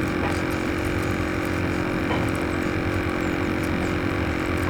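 A steady mechanical hum holding one even tone, over a constant low rumble.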